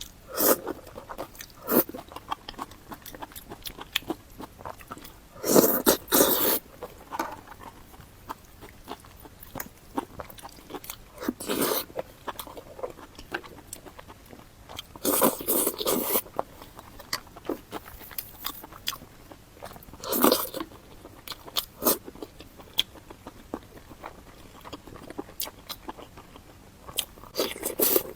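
Close-miked eating: a person takes loud crunching bites about every four to five seconds, five in all, with chewing and small wet mouth clicks in between.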